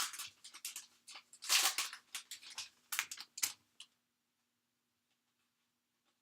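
Trading cards and their foil pack wrapper being handled: a quick run of crinkling, scraping rustles for about four seconds, then the sound drops away almost to nothing.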